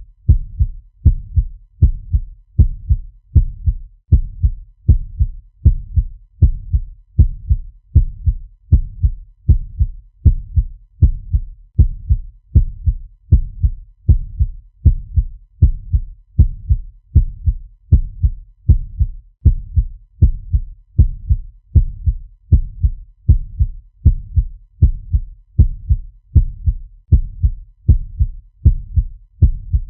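Fast heartbeat sound effect: deep double thumps (lub-dub) repeating in a steady, even rhythm without a break.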